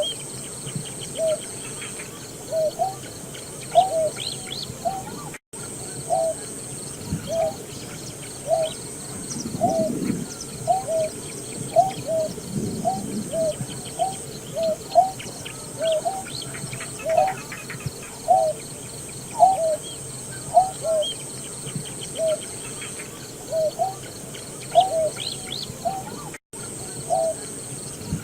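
Greater painted-snipe calling: a steady, unbroken series of short, low hooting notes, a little more than one a second, with faint chirps of other birds behind.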